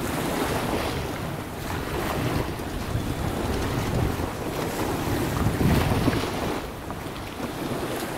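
Strong sea wind buffeting the microphone in gusts, over the wash of choppy sea water.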